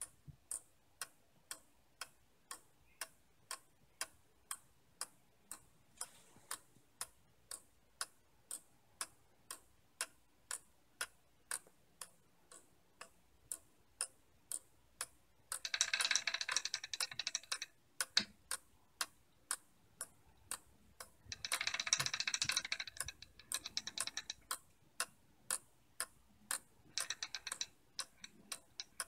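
3D-printed plastic pendulum clock ticking steadily, about two ticks a second from its Graham escapement beating with a half-seconds pendulum. Three times, about halfway through and near the end, a metal ball chain is pulled through the plastic pulley and ratchet click with a louder rattle, winding up the weight while the ticking carries on under the Huygens endless-loop maintaining power.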